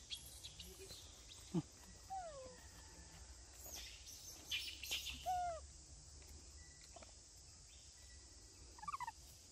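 A few short whistled animal calls, each falling in pitch, with a quick flurry of calls near the end over faint forest background. A single sharp knock comes about one and a half seconds in.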